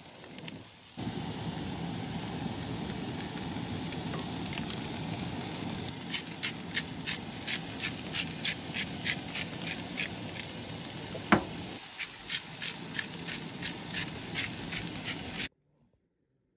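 Diced potatoes, peppers and onions frying in oil in two skillets on a Coleman propane camp stove. A steady sizzle, with sharp crackling pops about twice a second from about six seconds in. It cuts off suddenly near the end.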